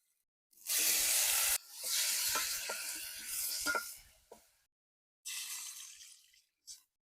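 Food sizzling as it fries, heard in three bursts that start and stop abruptly, with a few sharp clicks in the middle one and a brief last burst near the end.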